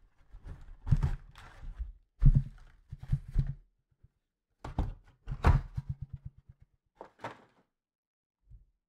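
Cardboard trading-card hobby box being handled and opened by gloved hands: a series of thunks and knocks against the table, with a quick run of clicks about six seconds in.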